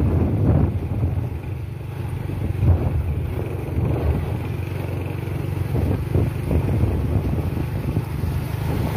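A motor vehicle on the move: a steady low engine and road rumble that swells and eases a little in loudness.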